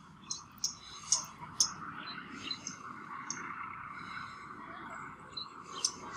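Birds chirping in short, high notes, several a second, over a faint steady hiss.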